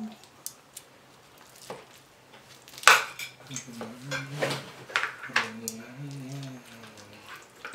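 A slotted metal spatula clinks and scrapes against a glass baking dish as a portion of casserole is cut and lifted out, with the sharpest clink about three seconds in. Someone hums quietly over the second half.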